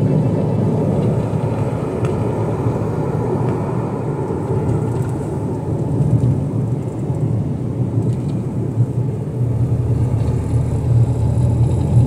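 Steady road and engine noise of a moving car, heard from inside the cabin as a low, even rumble.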